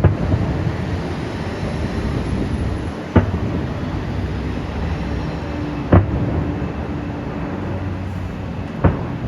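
Fireworks display: four loud bangs of aerial shells bursting, about three seconds apart, over a steady low rumble.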